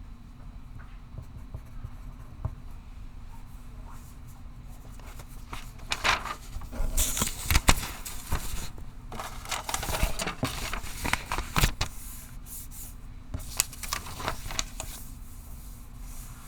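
Pencil scratching on paper in quick runs of writing strokes over a steady low room hum. The writing starts about six seconds in and stops shortly before the end.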